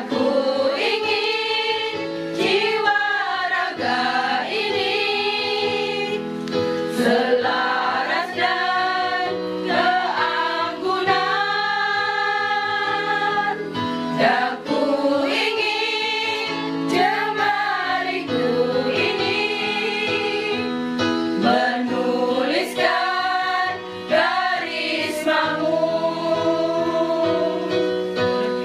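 Women's village choir singing an Indonesian patriotic song together.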